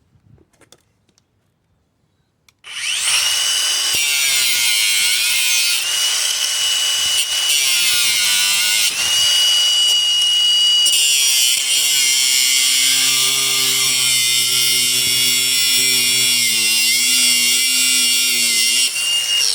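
Ridgid Octane cordless angle grinder, its small worn-down cutoff disc grinding through a bolt. It starts about two and a half seconds in and runs without a break, a harsh grinding with a steady high whine, and a lower hum joins about halfway through.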